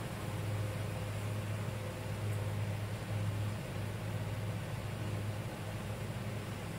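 A steady low hum over an even background hiss, without a break or a clear stroke.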